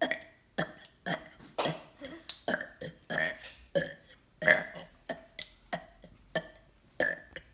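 A person burping on purpose, a long rapid string of short burps at about two a second, made by swallowing air and pushing it back up.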